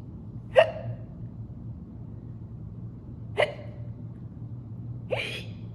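A woman making fake hiccups: two short, sharp hics about three seconds apart, then a longer one near the end. She herself finds them too fake to pass for real hiccups.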